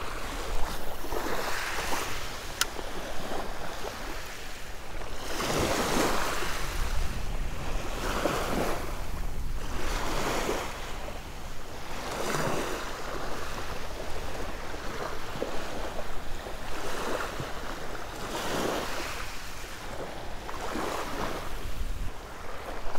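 Small waves washing onto a shelly beach in repeated surges every couple of seconds, with wind rumbling on the microphone.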